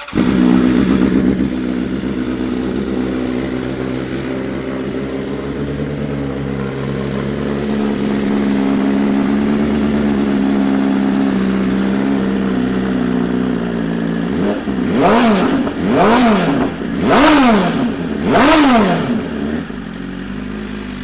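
2020 BMW S1000RR's inline-four engine with a full Akrapovič exhaust system starting up and idling, then revved four times in quick blips that rise and fall, settling back to idle.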